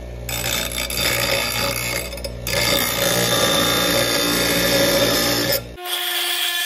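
Bench grinder wheel grinding a chromoly steel disc-brake tab held in locking pliers: a steady grinding hiss over the motor's hum, with a short break a little over two seconds in. Near the end the low hum drops away abruptly while the grinding goes on.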